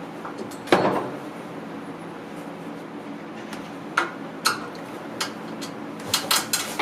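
Workshop clatter of tools and parts being handled. A sharp knock with a short ring comes about a second in, then scattered clinks and knocks, with several in quick succession near the end.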